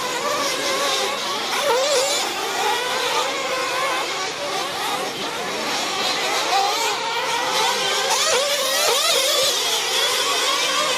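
Several 1/8-scale nitro RC truggies racing at once, their small nitro engines whining in overlapping tones that rise and fall in pitch as they accelerate and back off around the track.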